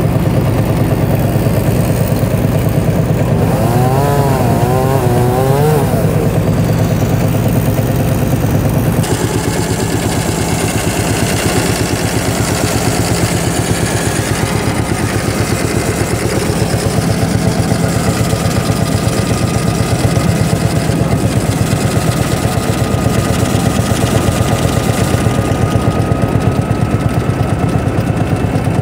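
Vintage tractor engine running steadily with an even firing beat, driving a belt-powered circular saw. A brief warbling tone sounds about four seconds in, and the sound turns brighter and noisier about nine seconds in.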